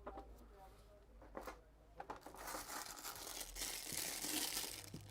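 Rubbing and scraping on a phone's frame during cleaning: a rasping, crinkly noise that builds about two seconds in and eases near the end, with a couple of small clicks before it.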